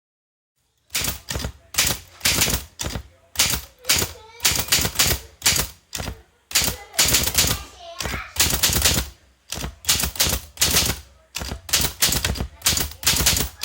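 Typewriter keys striking in quick runs of sharp clacks, with short pauses between the runs, as words of a line are typed out.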